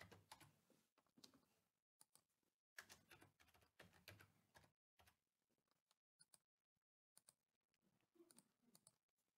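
Near silence with faint computer keyboard typing and clicks, as values are typed into form fields.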